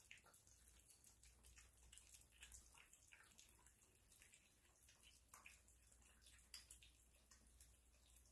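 Faint, wet smacking and lapping of several kittens eating wet cat food from their bowls: a steady patter of small, irregular clicks.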